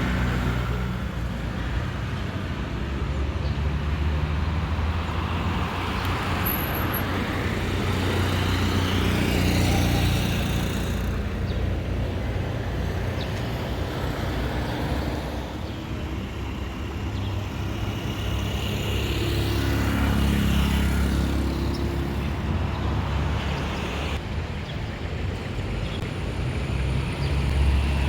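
Road traffic with several vehicles passing one after another over a steady low engine rumble. Each pass swells and fades.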